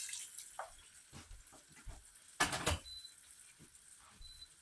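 Light kitchen handling noises at a cooking pot: a few soft knocks and one brief, louder clatter about two and a half seconds in.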